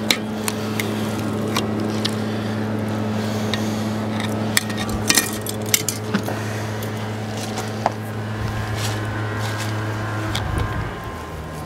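Metal fork and tongs clinking and scraping against a cast-iron Dutch oven as tender smoked chuck roast is pulled apart. The clinks are scattered, with a quick cluster about five seconds in. A steady low motor-like hum runs underneath and fades out near the end.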